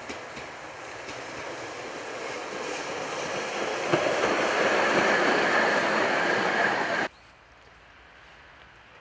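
ČKD Tatra T6A2 tram approaching and passing close by, its wheels rolling on the rails and growing steadily louder, with a thin steady high whine over the rolling noise. A single clack about four seconds in. The sound cuts off suddenly about seven seconds in, leaving a much quieter background.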